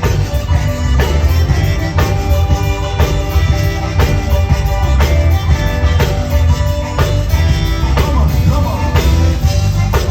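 Live zydeco band playing, with held chords over a steady beat.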